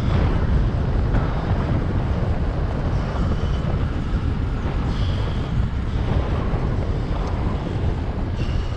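Wind buffeting the microphone, a steady low rumble, as from riding a bicycle at speed.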